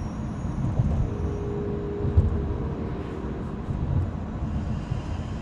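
A 1.7 CDTI diesel car driving on the road: an uneven low rumble of tyres and engine, with a faint steady tone for a couple of seconds about a second in and a single bump about two seconds in.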